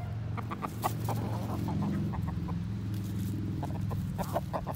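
Chickens clucking in short, quick notes, over a steady low hum.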